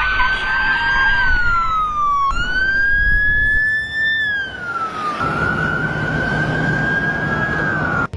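A loud siren-like wail: one clear tone slowly rising and falling in pitch, in three long sweeps that break off abruptly.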